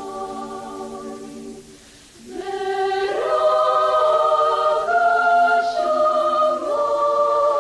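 Choir singing slow, held chords in several parts. It thins out about two seconds in, then comes back louder on a new chord.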